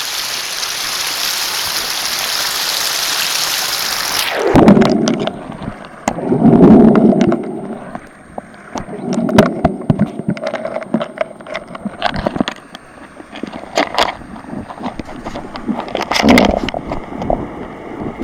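Stream water rushing for about four seconds, then the sound suddenly turns muffled as the camera is plunged underwater: loud gurgling surges of water with knocks and bumps of the camera being handled.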